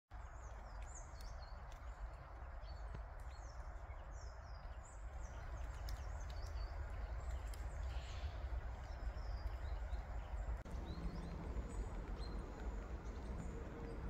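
Small birds giving short high chirps and thin downward-sliding calls, many in the first few seconds and fewer later, over a steady low rumble and hiss of forest ambience.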